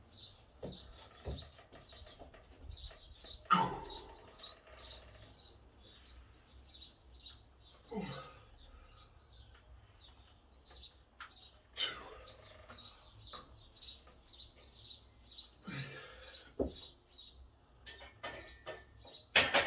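A small bird chirping over and over, several short high chirps a second. About every four seconds a louder breath marks each squat rep, and near the end comes a sharp knock, the loudest sound.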